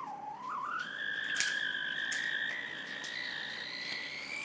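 Battery-powered toy money gun's small electric motor whining as it spins the wheel that flings out prop banknotes. The pitch dips briefly, then rises about a second in and holds steady, with a few faint clicks.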